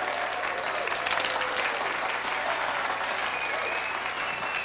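Audience applauding steadily after a stage introduction, with a faint whistle near the end.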